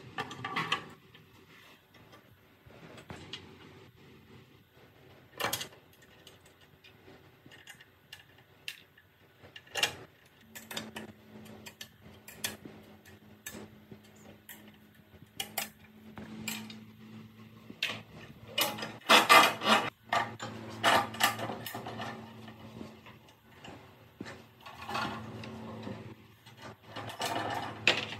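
Metal parts of a chop saw's vise and fence being fitted to its cast base: scattered clinks, taps and scraping of steel on steel and a wrench on a nut, with a dense run of clatter about two-thirds through as the loudest part.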